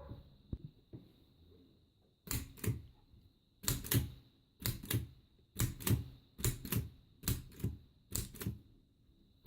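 Empire typewriter, the Canadian-made version of the Adler, being typed on: its thrust-action typebars strike forward against the platen instead of dropping onto it. The keystrokes start about two seconds in and come irregularly, often in quick pairs of clacks, roughly one or two a second.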